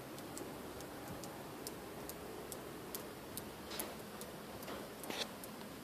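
Faint, evenly spaced ticking, a little over two ticks a second, with two brief soft noises in the second half.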